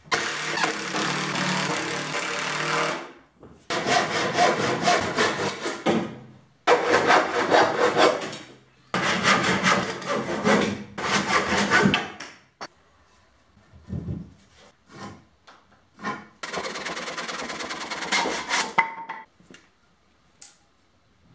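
Cordless impact driver driving screws through plywood into wooden rails: five bursts of rapid hammering, each two to three seconds long, with a few light clicks between the fourth and fifth.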